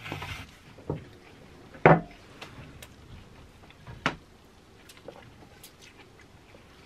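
Close-up eating sounds of sushi: chewing, with a few sharp clicks and taps from chopsticks and mouth, the loudest about two seconds in.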